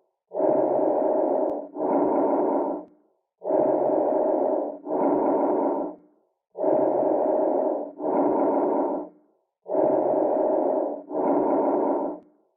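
Breath sounds heard through a stethoscope. Each breath in and breath out lasts about a second, both equally loud with a short gap between them, and the cycle repeats about every three seconds, four times over.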